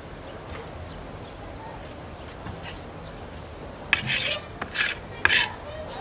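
Steel bricklaying trowel scraping cement mortar along the top of a concrete block wall. There are three short scrapes in the last two seconds, after a quiet start.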